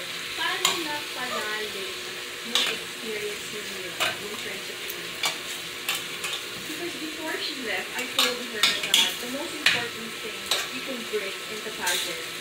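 Chicken pieces sizzling in a stainless steel pot as they are turned over with a metal utensil, with repeated sharp clicks and scrapes of metal on the pot over a steady frying hiss.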